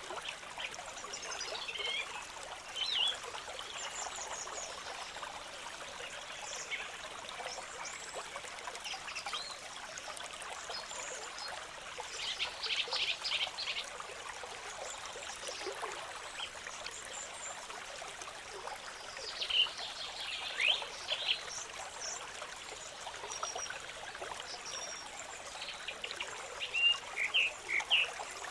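Small stream trickling steadily over rocks, with short high chirping calls from wildlife scattered through it and a quick rattling trill about twelve seconds in.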